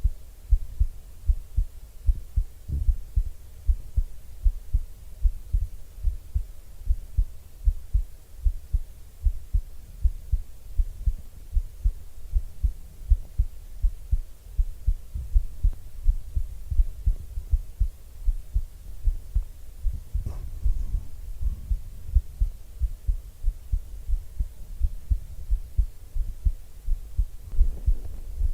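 A person's heartbeat heard up close: a steady rhythm of low thumps, with a faint rustle of movement about twenty seconds in.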